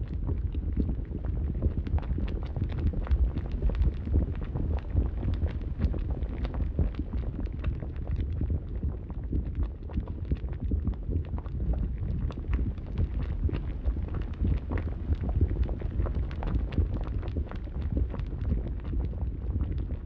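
Large fire roaring steadily, a dense low rumble full of irregular crackles and pops.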